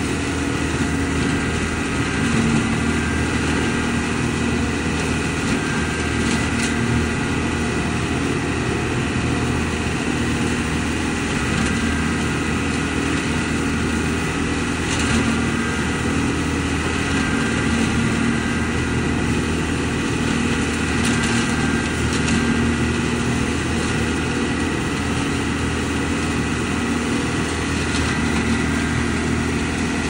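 ODB LCT650 trailer leaf vacuum running steadily, its engine droning under a constant rush of air as raked leaves are drawn into the intake hose. A few brief faint ticks sound over it.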